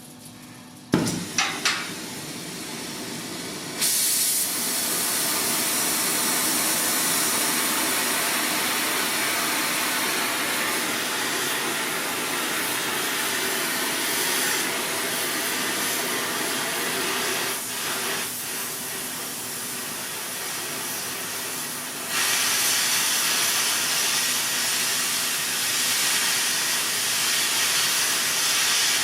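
Steam venting with a steady, loud hiss. A few sharp clicks come near the start, and the hiss steps up in level about four seconds in and again a little past twenty seconds.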